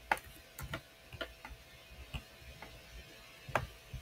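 Computer mouse clicking, about ten scattered, irregular clicks while the Select tool is used on screen.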